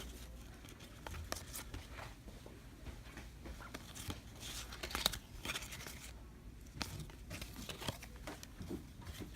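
Trading-card pack wrapper being torn and crinkled while cards are handled: a scatter of short tearing and rustling sounds with light ticks, the sharpest about five seconds in.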